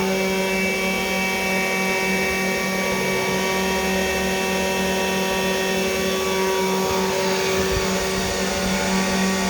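CNC 3018 desktop router's spindle motor running steadily while milling brass: a constant hum of several steady tones over a hiss of cutting noise.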